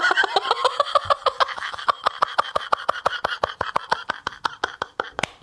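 A man laughing hard: a long run of rapid, breathy laugh pulses, about eight a second, that gradually fade out towards the end.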